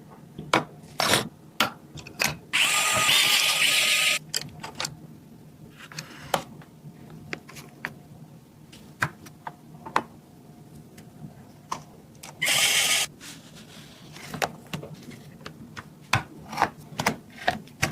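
Small hard clicks and taps of computer parts and screws being handled and fitted, with two short runs of an electric screwdriver, one about two and a half seconds in and a shorter one near the middle.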